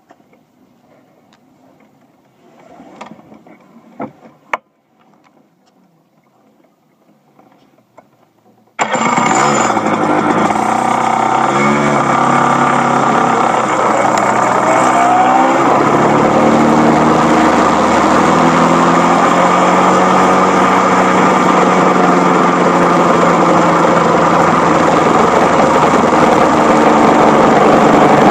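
Rotax Max 125cc two-stroke kart engine starts suddenly about nine seconds in, after a few faint clicks. It revs up and down as the kart pulls away, then runs loud and steady as the kart gathers speed.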